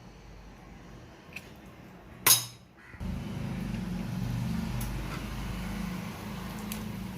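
A sharp clink of a utensil about two seconds in, then from about three seconds the steady sound of seasoned water with lemon juice boiling in a kadai on the stove.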